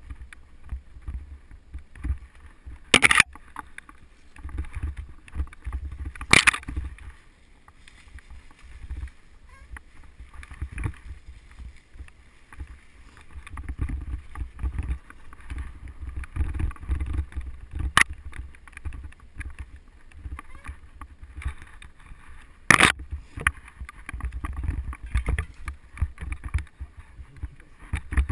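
Mountain bike ridden along a forest singletrack, heard from a helmet camera: an uneven low rumble of tyres on the trail and wind on the microphone, with a few sharp clacks as the bike rattles over bumps.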